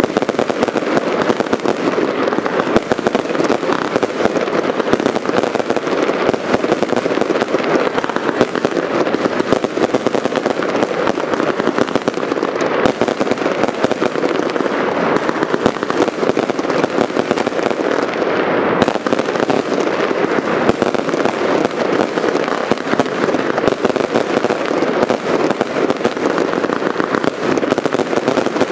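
Aerial fireworks bursting overhead: a long, unbroken run of dense crackling and popping, with no single blast standing out above the rest.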